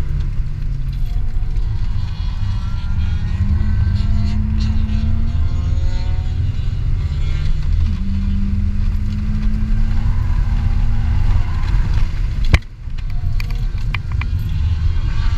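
2003 BMW 325i's straight-six engine heard from the cabin under hard acceleration on a race track, its pitch climbing and then dropping at a gear change about eight seconds in before rising again, over a heavy low rumble of road and wind noise. A single sharp knock comes near the end.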